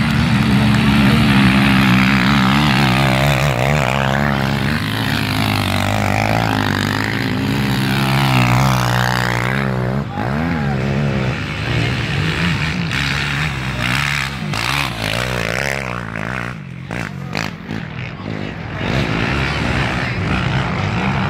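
ATV quad engines revving hard under full throttle up a steep dirt hill climb, the pitch rising and falling as the rider works the throttle. The engine sound drops away about two-thirds of the way through, then another quad's engine builds again near the end.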